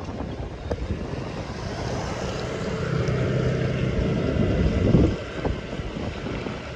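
A motor vehicle's engine passing close, droning louder over a few seconds and falling away quickly about five seconds in, over steady street traffic noise.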